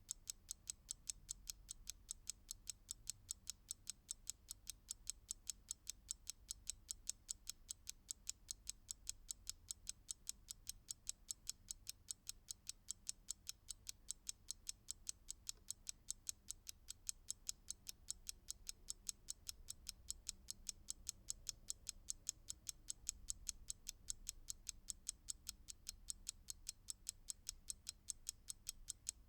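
Ticking time-bomb timer: a steady, evenly spaced run of sharp mechanical ticks, a few per second, with a faint low rumble beneath.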